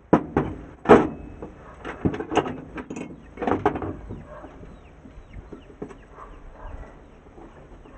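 Irregular knocks and clatters of metal starter-motor parts being handled and set down on a wooden floor, a cluster of louder ones in the first few seconds, then fainter ones.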